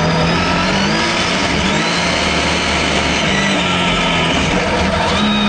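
Rally car engine heard from inside the stripped cabin at full effort, its pitch climbing and dropping several times as it revs through the gears, over a steady rush of noise.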